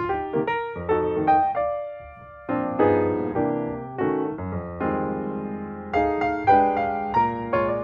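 Background piano music, notes struck and fading one after another, with a brief lull about two seconds in.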